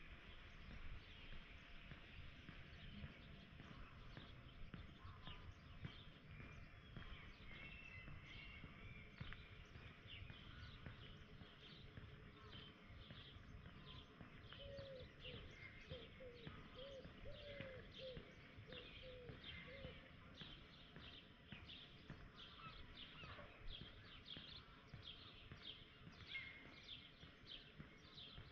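Faint birdsong: small birds chirping in quick, repeated notes over a low, steady outdoor background, with a short run of lower calls about halfway through.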